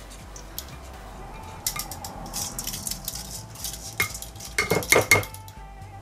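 Washed rice sliding and pattering out of a perforated stainless steel strainer into a metal pot, then the strainer knocked against the pot rim in a quick run of sharp, ringing metallic clanks about four seconds in to shake out the last grains.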